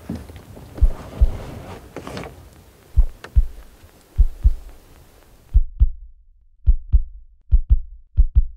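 Heartbeat sound effect: deep double thumps, lub-dub, coming faster and faster. A faint hiss of background noise sits under the first half and cuts out about five and a half seconds in, leaving only the beats.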